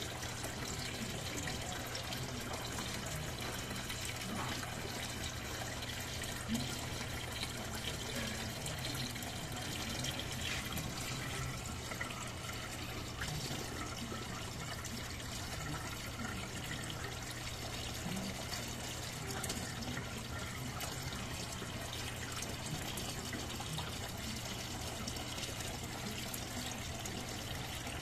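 Steady trickle of running water in a turtle tank, over a low steady hum.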